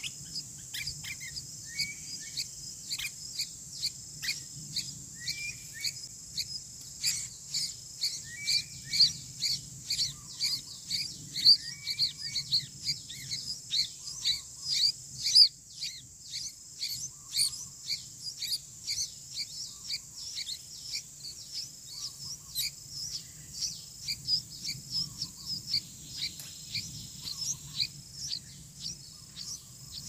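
Sooty-headed bulbul nestlings begging with short, high chirps, one or two a second, busier and louder in the middle as a parent arrives to feed them. A steady high insect drone runs underneath.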